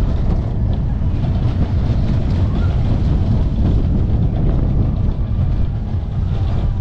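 Slinky Dog Dash coaster train running at speed, heard from a rider's seat. Wind rushes loudly over the microphone over a steady rumble of the wheels on the track.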